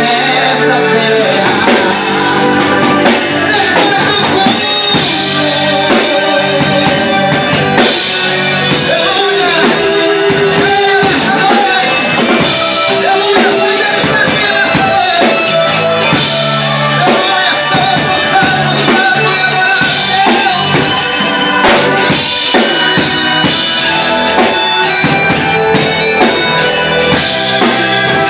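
A band playing music with a drum kit keeping a steady beat under singing and pitched instruments.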